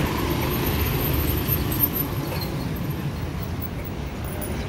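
Steady low rumble of street background noise, like traffic.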